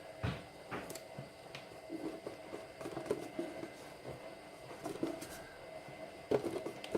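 Quiet handling noises of a sticker being peeled off its backing and pressed into place: scattered small rustles and light taps, over a faint steady hum.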